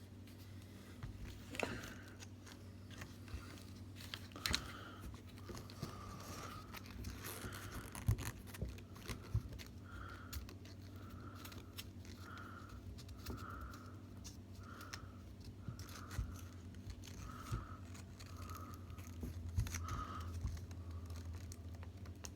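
Hands working a Velcro tie onto a metal DSLR cage: scattered scraping and rustling, with a few sharp clicks and knocks.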